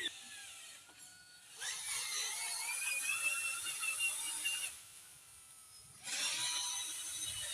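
Small electric motor and gears of an RC toy vehicle whining in two spells, the pitch rising during the first, with a short pause just before the second.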